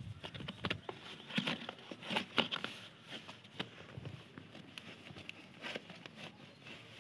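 Cardboard shipping box handled and opened by hand: scattered rustles, scrapes and taps of cardboard, most frequent in the first few seconds.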